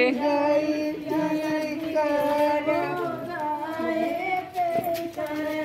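A group of women singing a folk song together, with long held notes that slide slowly up and down.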